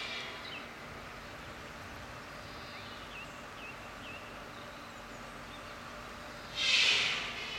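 Steady rush of river water, with a few faint short bird chirps and a louder high-pitched animal call lasting about a second near the end.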